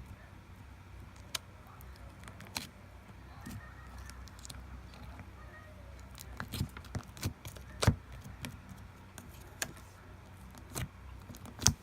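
Slime being played with by hand: irregular sharp clicks and pops, a quick cluster in the middle and a louder one near the end, over a low steady hum.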